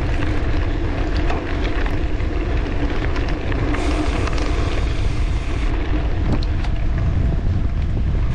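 Steady wind buffeting the microphone and bicycle tyres rolling over a dirt gravel road while riding, with a few small ticks from grit under the wheels.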